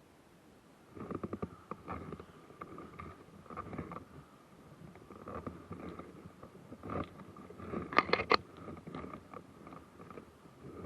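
Irregular close rustling and crackling in bursts, starting about a second in and loudest around eight seconds in, over a faint steady high hum; typical of a ghillie-suited player moving through undergrowth near the microphone.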